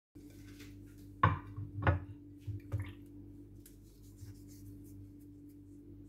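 Four sharp knocks and clatters of household objects being handled in the first three seconds, the first two loudest, over a steady low hum.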